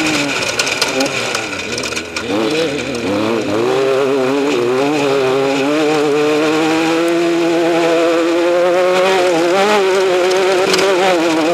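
Off-road race vehicle's engine running at high revs, its pitch rising and falling over the first few seconds and then holding steady with a slight waver.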